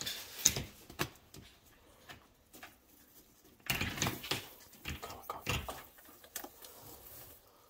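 Scattered light knocks and scrabbling from a Savannah monitor's claws on the enclosure's glass front edge and gravel substrate as it climbs and shifts about. The sharpest knock comes about half a second in, another at one second, and a busier patch of scratching around four seconds and again near five and a half.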